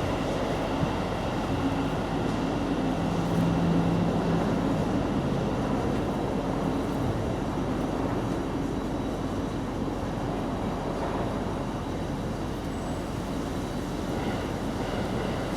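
Steady rumbling background noise, with a brief low hum about three seconds in.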